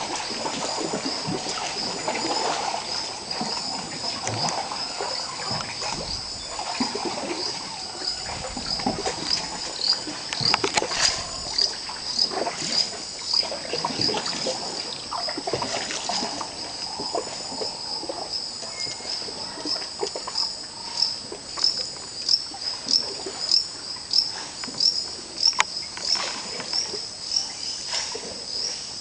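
Amazon rainforest ambience: a steady high-pitched insect chorus over the splash and drip of canoe paddles in the water, with birds calling.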